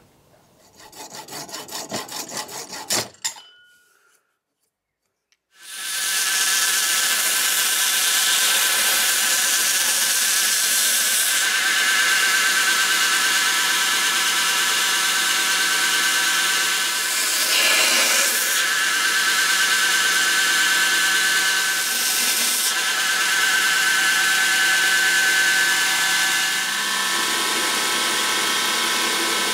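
A short run of hacksaw strokes about a second in, cutting through the handle pins. After a brief break, a belt grinder runs steadily, with small rises and dips in level, as the knife handle's scales are ground down toward the tang.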